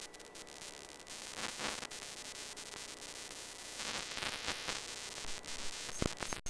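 Static hiss and crackle from a weak analog television signal, surging at times, with sharp cracks near the end.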